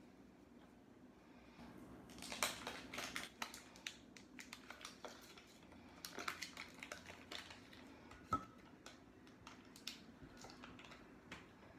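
Faint clinks, taps and scrapes of kitchen utensils and dishes being handled, in scattered clusters, with one sharper ringing clink about eight seconds in.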